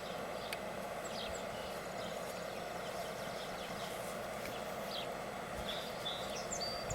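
Outdoor yard ambience: a steady background hum with a bird giving short, high chirps every second or so.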